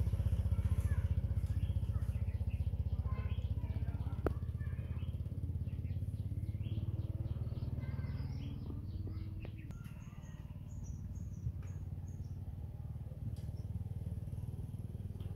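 Small motorbike's engine running steadily as it rides away, fading out after about eight seconds. Birds chirp over it, with a run of high falling notes near the end.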